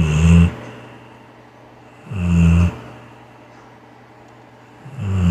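Dog snoring with a low, human-like snore, three short snores about two and a half seconds apart.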